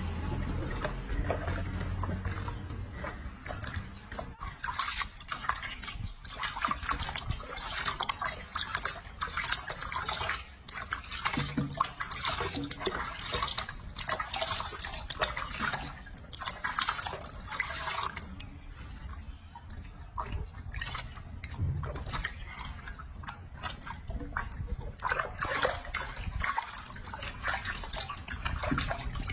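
Water splashing and sloshing in a washbasin as hands scoop it over a baby monkey being bathed, with irregular small splashes and drips.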